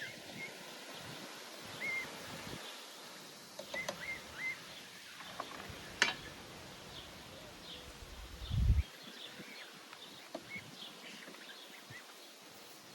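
Birds chirping outdoors, short scattered calls, some in quick groups of two or three. A sharp click about six seconds in and a low thump a couple of seconds later stand out.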